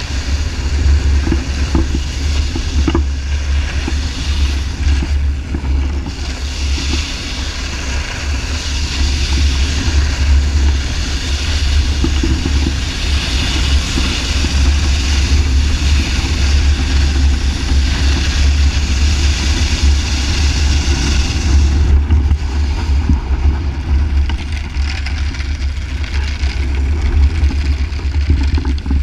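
Wind buffeting the microphone in a heavy, steady rumble, over the even hiss of a snowboard gliding across ice.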